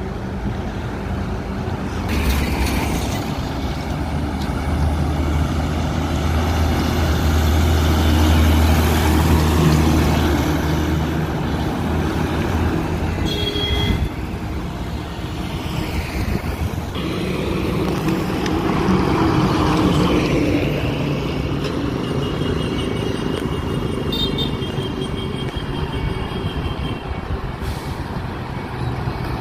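Heavy diesel trucks passing on a road, their engines running with a strong low drone that builds and fades over the first half, over tyre and traffic noise. Short high squeals come in twice.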